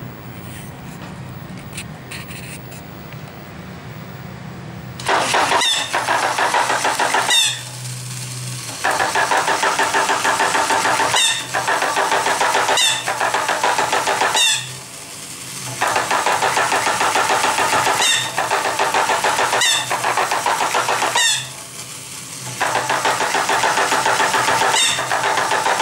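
Battery-operated tin toy monkey bandsman (Alps Busy Monkey Bandsman) running: a low motor hum, then from about five seconds in the toy saxophone sounds a steady droning tone over the clatter of its tin drum, with sharp clicks every second or two. The playing breaks off for about a second three times.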